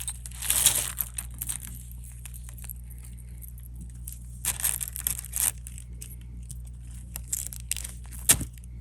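Loose costume jewelry rattling and clinking as a hand rummages through a pile of broken pieces, in three short spells of scratchy rustling, with a sharp click near the end. A steady low hum runs underneath.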